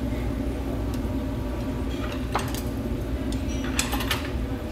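A few clinks of tableware over a steady low hum: a single sharp click about halfway through, then a short cluster of clinks near the end as a hand reaches for the chopsticks and dishes.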